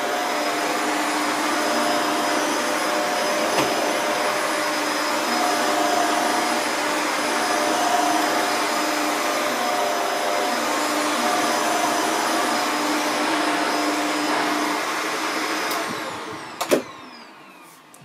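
Shark Anti Hair Wrap upright vacuum cleaner running on carpet, its motor pitch wavering slightly as it is pushed back and forth. About sixteen seconds in it is switched off and winds down, followed by a single sharp clunk.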